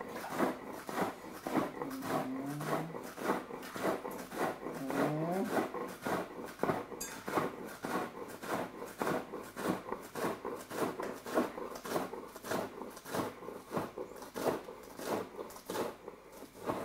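Chef's knife slicing spring onions finely on a wooden chopping board: a steady run of quick knocks, about two to three a second. A few short rising tones, like a hum or whine, sound in the first six seconds.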